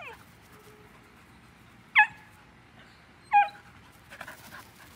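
Black standard poodle giving two short, high, loud barks about a second and a half apart while playing chase, after a brief falling whine right at the start.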